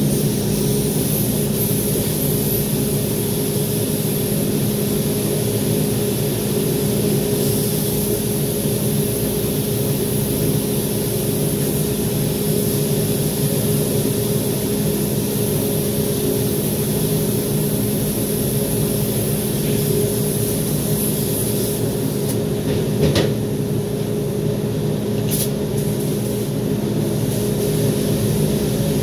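Steady machine hum from the spray booth under the high hiss of a gravity-feed spray gun's air as it sprays finish onto a guitar body. The hiss drops back for a few seconds near the end, with one short knock.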